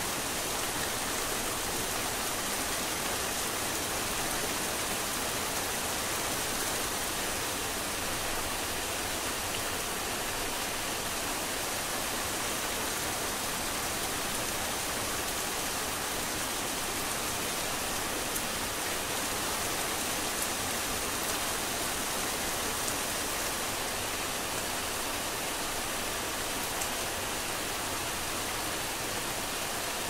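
Heavy rain pouring down steadily: an even, dense hiss that does not let up.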